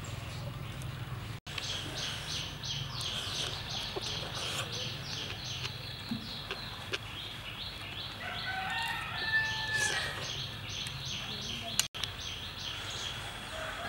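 A rooster crowing in the background, one long crow a little past the middle and another beginning at the very end, over a fast run of short high chirps and a steady low hum. The sound drops out briefly twice.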